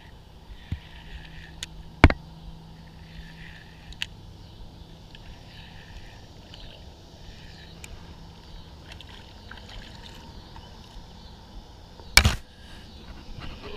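Small catfish being reeled in on a spinning rod at the water's edge. There is a sharp knock about two seconds in and a loud splash near the end as the fish is brought up through the surface.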